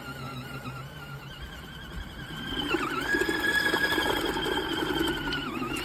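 Small electric motor of a portable mini washing machine running with a steady high whine; about three seconds in its pitch steps up and a rumble joins it, as if the drum is speeding up.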